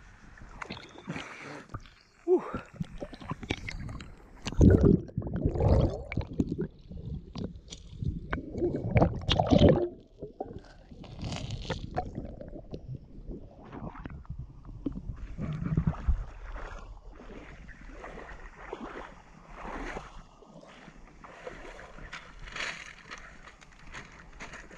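Seawater sloshing, gurgling and splashing against a camera held at the water's surface, with loud surges from about two to ten seconds in and again around sixteen seconds, then quieter lapping water.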